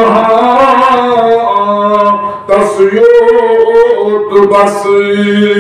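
A man singing a devotional nazam unaccompanied, holding long, slowly gliding notes, with short breaks between phrases.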